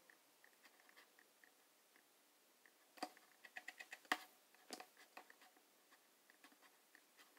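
Faint computer-mouse clicks and scroll-wheel ticks, with a quick run of ticks and one sharper click about three to four seconds in.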